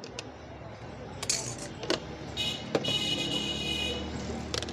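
Metal spoon clinking and scraping against a stainless steel bowl as red candied pieces are spooned in. There are a few sharp clinks, and a high ringing tone lasting about a second and a half in the middle.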